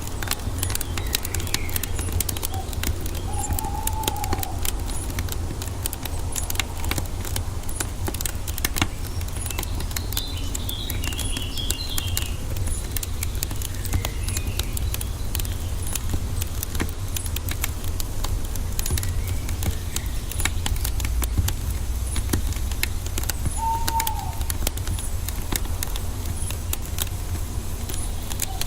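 Wood fire crackling, with frequent sharp pops over a steady low rumble. A few short bird calls come through, one about four seconds in, a chirping patch near the middle, and another near the end.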